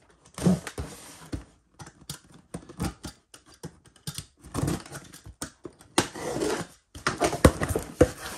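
Utility knife slicing through the packing tape on a cardboard shipping case, an irregular run of sharp clicks and scrapes. Near the end, the cardboard flaps are pulled open with scraping.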